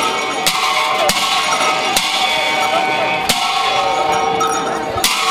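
Large cymbals clashing about five times at uneven intervals, each crash ringing on, the accompaniment to a Bhutanese masked cham dance.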